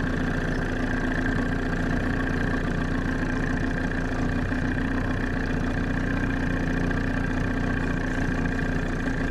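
A boat's motor running steadily: an even hum with a constant higher whine above it.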